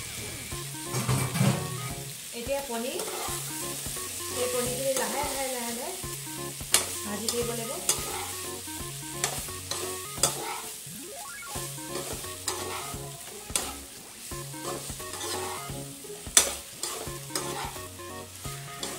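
Paneer cubes and capsicum sizzling in oil in a non-stick wok on a low flame, turned gently with a perforated spatula that scrapes across the pan. Now and then the spatula strikes the pan with a sharp click.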